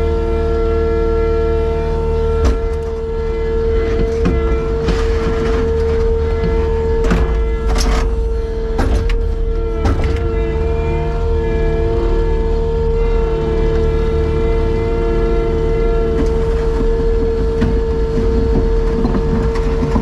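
A machine running steadily, with a strong, constant whine over a low rumble and a few knocks and clatters through the first half.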